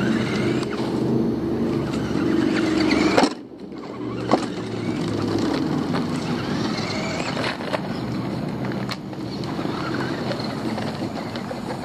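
RC buggy driving on pavement, motor whining and tyres rolling. About three seconds in the sound peaks and then drops off sharply, a single sharp knock follows about a second later, and then the whine and rolling carry on with a rising whine later on.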